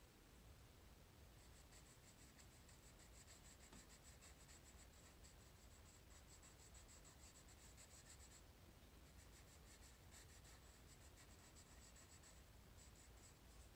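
Faint scratching of a coloured pencil shading on paper in quick back-and-forth strokes, with a short pause about eight seconds in and another near the end.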